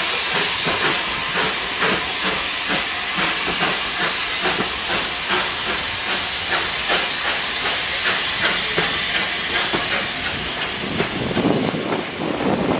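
Steam locomotive pulling away with a train, its exhaust chuffing at a steady beat over a continuous steam hiss, while the coaches roll past. A louder rumble builds near the end.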